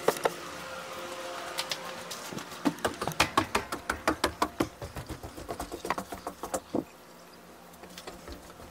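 A quick run of light clicks and taps, about four or five a second, that starts about a second and a half in and stops sharply near seven seconds, over a faint steady hum that fades early.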